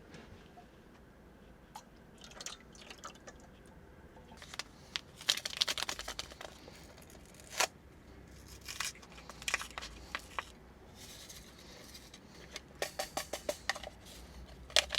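Scattered clinks, taps and scrapes of kitchen utensils and dishes being handled while dough ingredients are mixed, with a quick run of light taps near the end.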